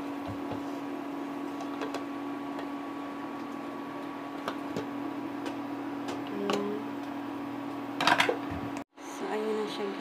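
A steady low electrical-sounding hum with a few light clicks and clinks, cut off just before the end by the start of music.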